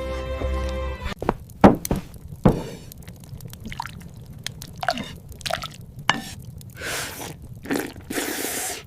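Music breaks off about a second in and gives way to a run of separate drips and small liquid plops, with two longer hissing, pouring sounds near the end: sound effects of a stew being cooked.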